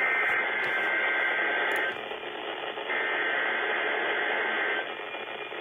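Emergency Alert System SAME header over NOAA Weather Radio: two bursts of two-tone digital data, each about two seconds long and a second apart, over heavy radio static. They are the coded alert header announcing the tornado watch.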